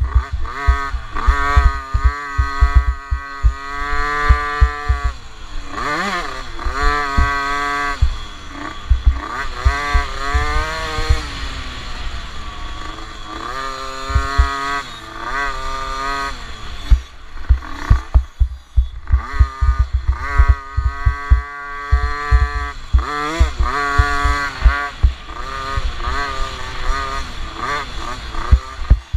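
50cc motocross bike engine revving high and dropping back again and again as it is ridden hard, its pitch climbing and falling with the throttle. Heard close up, with wind buffeting the microphone.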